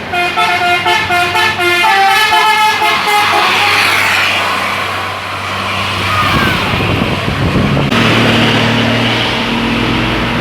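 Bus telolet 'basuri' musical horn playing a quick melody of short, stepping notes for about three and a half seconds, then fading into the bus engine and road noise as it passes.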